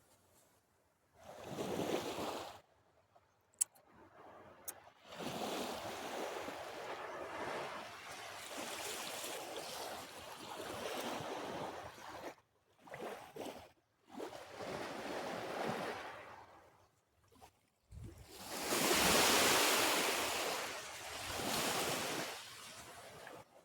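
Waves washing in and receding, a rushing noise that swells and falls in surges of a few seconds with short quiet gaps between them. Two brief clicks about four seconds in.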